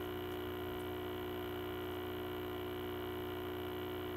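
Steady electrical mains hum, a dense buzz of fixed tones. A couple of faint clicks in the first second.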